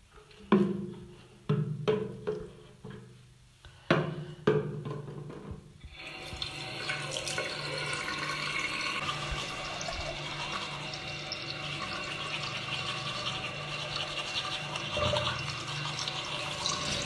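A few separate knocks and clunks, then about six seconds in a tap comes on and water runs steadily into a bathroom sink.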